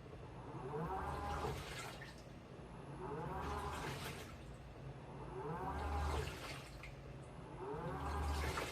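Washing machine mid-wash, its motor driving the drum in short bursts about every two and a half seconds, each with a rising whine, while water sloshes inside.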